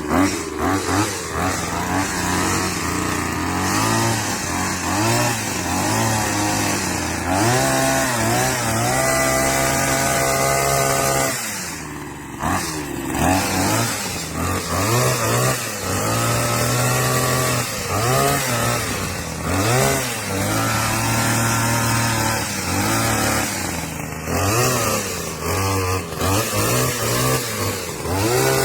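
Small two-stroke petrol engine of a garden multi-tool revving up and down in repeated blips, held at high revs for a few seconds about a third of the way in, then dropping off briefly before revving again.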